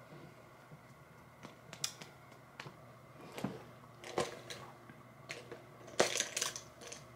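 Scattered light clicks and taps of small plastic items being handled and set down, with the loudest brief clatter about six seconds in.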